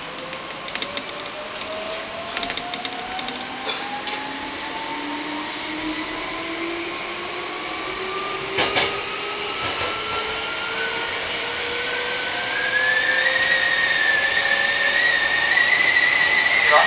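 Electric train's traction motors whining steadily higher as it picks up speed, heard from inside the front cab, over a running rumble, with a few sharp clicks from the wheels on the track.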